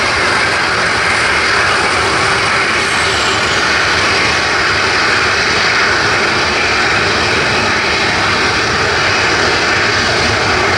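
Boeing 747 freighter's jet engines at takeoff power: a loud, steady rushing roar that holds level without a break.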